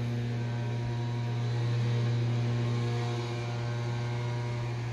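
Steady low hum of a running machine, one even drone with no change in pitch or level.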